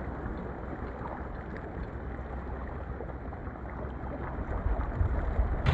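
Steady wind and sea-water noise at the shoreline, with no distinct event.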